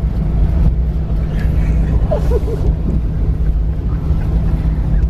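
School bus running down the road, heard from inside the cabin: a steady low drone of engine and road noise. A faint voice is heard briefly near the middle.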